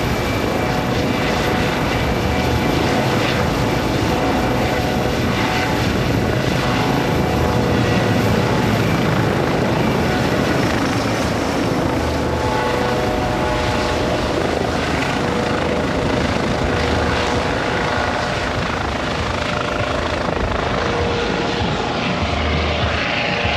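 Airbus EC135 twin-turbine helicopter with a Fenestron tail rotor running at flight power as it lifts off, hovers low and moves away. Steady rotor and engine noise with a constant high turbine whine.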